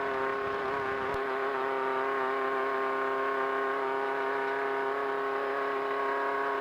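Air-cooled VW Beetle engine of a desert race car held at a steady high rev, one constant unwavering note, with a single faint click about a second in.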